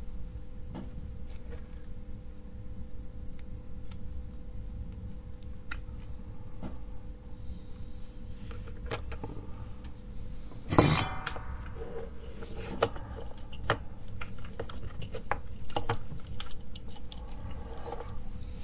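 Small clicks and light metallic taps of resistor wire leads and a circuit board being handled on a wooden bench, with one louder clatter about eleven seconds in as the board is turned over and set down.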